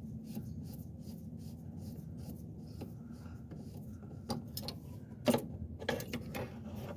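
Small metallic clicks and rubbing as a throttle cable and its slide are worked out of the top of a snowmobile carburetor by a gloved hand. Light ticking runs through, with a few sharper clicks in the second half, the loudest about five seconds in, over a steady low hum.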